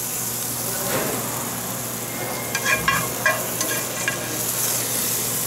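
Sauce of capers, shaved garlic, basil and green onions with lemon vinaigrette sizzling steadily in a hot pan, with a few light clicks about three seconds in.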